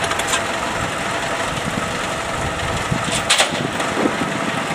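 An engine idling steadily, with one short sharp knock a little over three seconds in.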